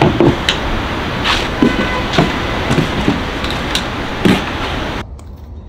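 Wooden folding chairs being folded and handled: a series of sharp wooden clacks and knocks over a loud, steady rushing noise, which drops away suddenly about five seconds in.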